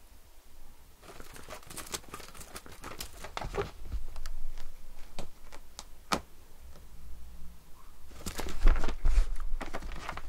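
A Siamese cat pouncing on and batting a toy mouse on a string, its claws scratching and catching on a woven rug in irregular bursts of scraping and clicks. The bursts are loudest near the end.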